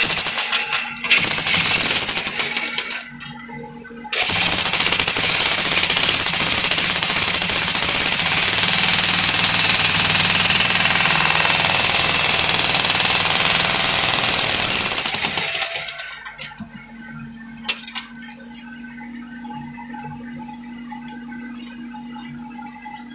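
Handheld jackhammer chiselling into rock in a narrow mine shaft. It runs in two short bursts, then in one long run of about eleven seconds that stops abruptly. Afterwards there are only faint clinks over a steady low hum.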